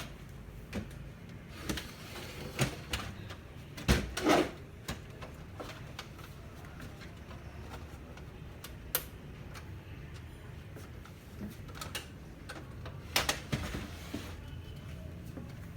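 Scattered clicks and knocks of the printer's plastic and metal parts being handled and unfastened during disassembly, loudest in a cluster about four seconds in and again near the end, over a steady low hum.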